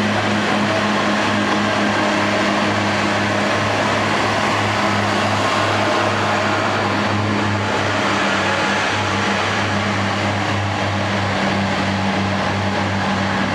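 Underfloor diesel engines of a Class 142 Pacer railbus running steadily, with a pulsing low drone, as the two-car train pulls away.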